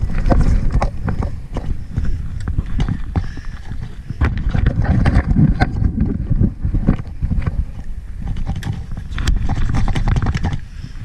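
Water splashing and knocking against a jet ski's hull as a person climbs aboard and settles onto the seat: many irregular thuds and knocks over a low sloshing rumble.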